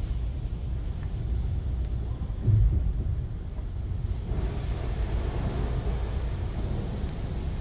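Low, steady vehicle rumble heard inside a car's cabin as it rolls slowly forward. There is a brief thump about two and a half seconds in, and a rushing noise joins about four seconds in.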